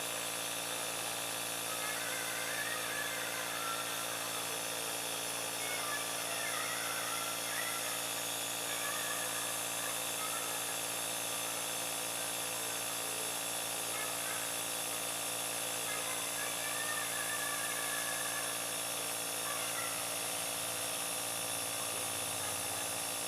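Compressor nebulizer machine running with a steady motorised hum.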